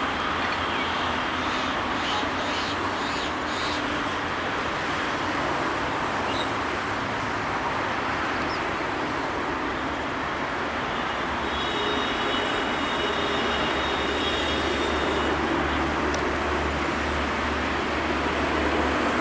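Diesel-electric locomotive approaching at the head of a passenger train: a steady low engine rumble under a wide noisy roar, growing a little louder over the last several seconds.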